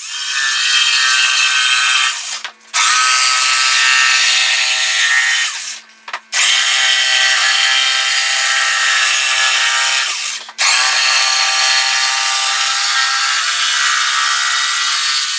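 Corded jigsaw (saber saw) cutting a curve through a plywood board, its motor whining steadily. The cut comes in four runs, with the saw stopping briefly three times.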